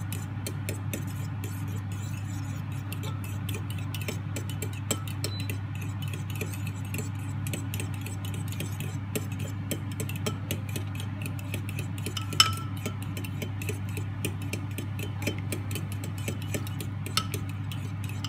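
A fork whisking beaten eggs in a bowl, with rapid light clicks of the fork against the bowl's side and a louder clink about twelve seconds in, over a steady low hum.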